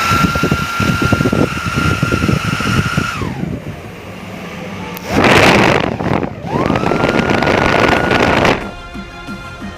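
Small high-speed DC motor whining as it spins up to a steady high pitch, holding for about three seconds and then winding down. A short loud rushing noise follows, then the motor spins up again and runs at the same pitch for about two seconds before stopping.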